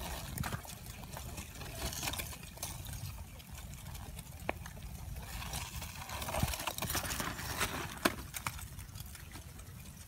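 Advancing basaltic lava flow: chunks of its cooling crust clinking and tinkling against each other in an irregular crackle of small sharp clicks, thickest about five to eight seconds in, over a low steady rumble.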